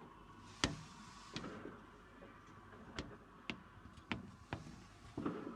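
Scattered fireworks going off: about seven sharp, irregularly spaced cracks and bangs, the loudest about half a second in.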